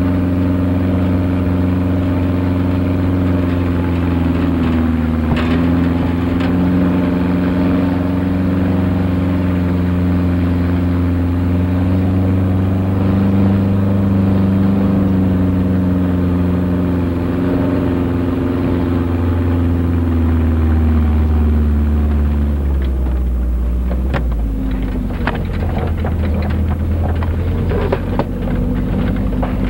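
Vehicle engine running while driving, heard from inside the vehicle, its pitch drifting up and down and then dropping about 22 seconds in as the vehicle slows. A scatter of clicks and crackles follows near the end.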